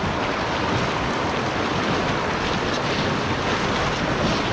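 Whitewater rapids rushing around a canoe as it runs a shallow river rapid: a steady, even rush of water, with some wind on the microphone.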